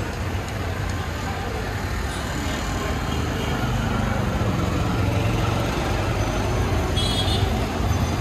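Street traffic: a steady rumble of vehicle engines and road noise, with a brief high-pitched tone about seven seconds in.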